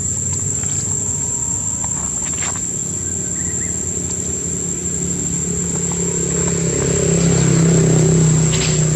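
A steady high-pitched insect drone over a low engine rumble from passing motor traffic. The rumble swells and fades again near the end.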